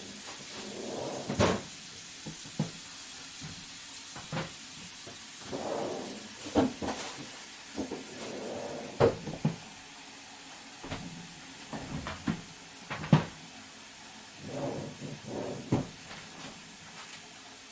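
Kitchen work while a salad is made: irregular sharp knocks and clicks, with softer scuffing sounds between them, over a steady hiss.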